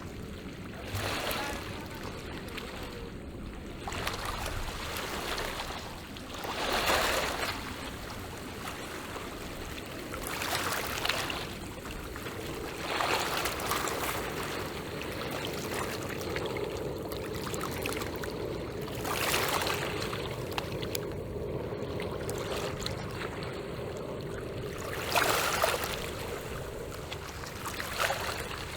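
Small sea waves washing up on the shore, one gentle surge every few seconds over a steady background wash.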